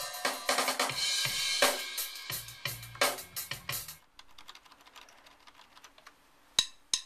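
Recorded drum kit tracks (kick, snare, hi-hat and cymbals) playing back from a multitrack session, stopping abruptly about four seconds in. After that it is nearly silent apart from two sharp clicks near the end.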